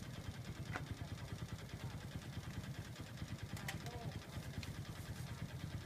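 A small engine idling with a steady, fast-pulsing low rumble, with faint voices and a few light clicks over it.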